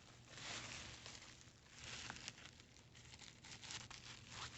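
Faint crinkling and rustling of a trading-card package being handled and opened, with a few small clicks.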